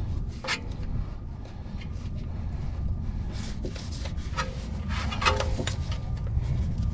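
Light rubbing and scattered clicks as an oxygen sensor's wire and connector are handled and fed up through the engine bay, over a steady low rumble.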